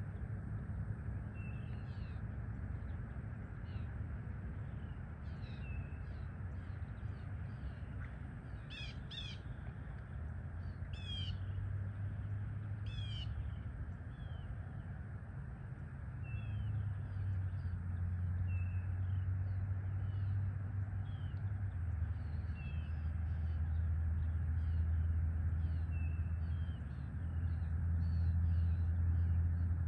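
Birds at dawn, with many short chirps repeating throughout and three louder, harsher calls about two seconds apart near the middle. A low rumble underlies them and grows louder in the second half.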